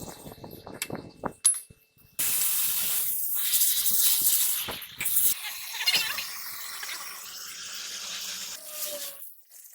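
A few light clicks and knocks, then a loud, steady hiss of a pressurised jet that starts suddenly about two seconds in and dies away near the end.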